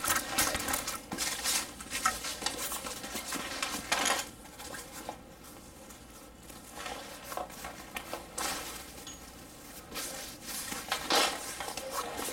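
Handling noise from a padded nylon rifle bag being opened out and moved: irregular rustling of the fabric with scattered light clacks. The strongest come about 4, 8 and 11 seconds in.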